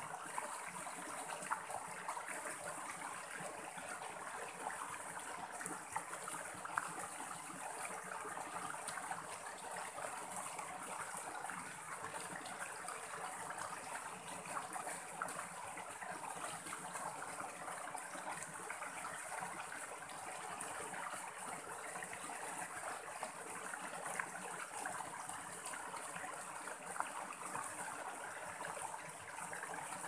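Shallow mountain stream running over boulders, a small cascade splashing and trickling steadily into a rocky pool, with a few brief louder splashes.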